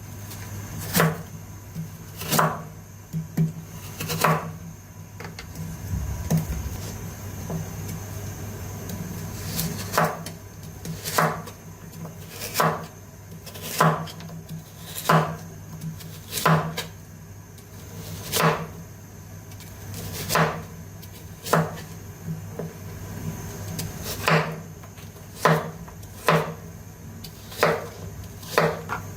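Knife chopping food on a wooden cutting board, one slow, separate cut every second or so, with a pause of several seconds early on and quicker cuts near the end. A steady low hum runs underneath.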